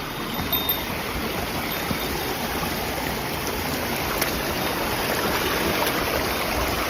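Rushing water of a mountain stream or waterfall, a steady, even rush.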